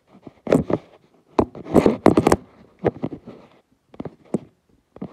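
A run of irregular knocks and scrapes from a phone being handled and set up on a wooden workbench, close to its microphone. The densest cluster comes about two seconds in, followed by a few lighter taps.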